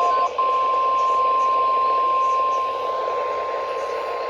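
NOAA Weather Radio 1050 Hz warning alarm tone, the signal that an emergency alert is being broadcast: one steady high tone with a brief dropout about a third of a second in, over radio hiss.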